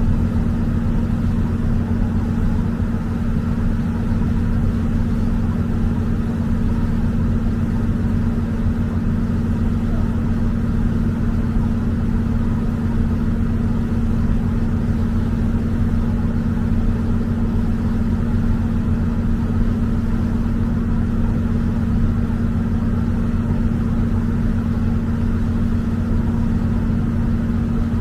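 Ferry's engines running steadily, heard on board as a constant low hum with no change in pitch or level.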